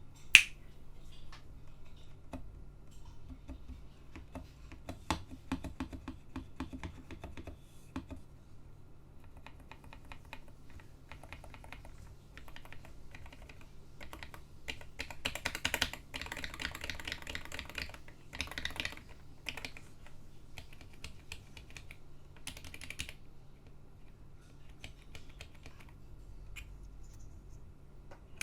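Typing on a homemade 68% mechanical keyboard with first-generation space invader switches: a steady patter of key clicks, with a fast, dense flurry of keystrokes a little past halfway. One sharp, much louder click comes right at the start.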